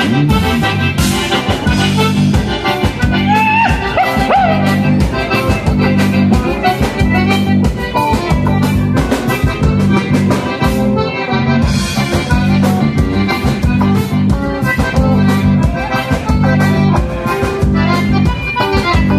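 Live dance band playing an instrumental passage, with accordion leading the melody over a bass line and a steady, even beat.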